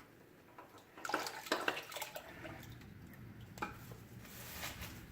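A few metal clinks and light knocks as a spin-on oil filter is worked off by hand over a drain pan.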